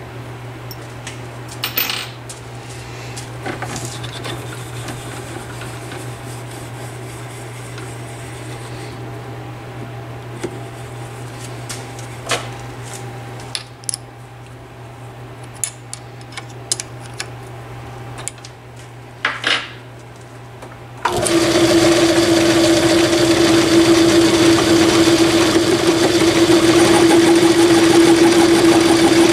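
Craftsman/Atlas 618 metal lathe being set up: scattered metal clicks and clanks from the chuck and tool post over a low steady hum. About two-thirds of the way in, the lathe switches on abruptly and runs steadily with a loud hum, ready to turn an aluminum spacer.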